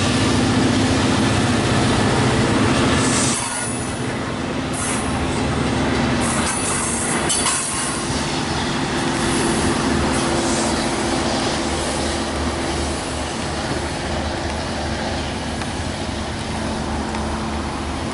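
A diesel-hauled Long Island Rail Road train of C3 bilevel coaches rolling past and pulling away around a curve. Its wheels run noisily on the rails and squeal in places, over the steady low drone of the locomotive. It gets a little quieter about three seconds in as the cars move off.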